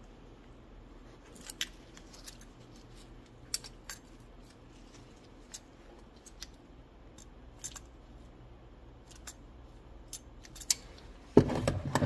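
Small metallic clicks and clinks as water-pump pliers grip and turn the choke plate screws on a small-engine carburetor to break them loose. Near the end comes a louder clatter of metal parts on the workbench.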